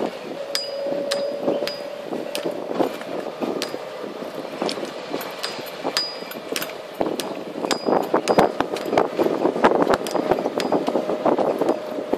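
Golf-cart-style resort buggy driving over concrete paths: a steady low whine under many irregular sharp clicks and metallic clinks as the cart rattles over the slabs, the rattling growing denser and louder past the middle.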